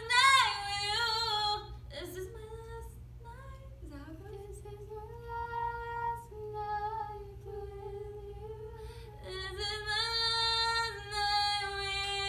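A female voice singing unaccompanied, holding long notes of a slow phrase that steps up and down in pitch; louder at the start and again over the last few seconds, quieter in between.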